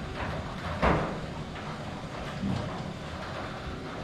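Roller garage door closing under its electric opener, a steady run of motor and door noise, with a loud clunk about a second in and a smaller knock a little later.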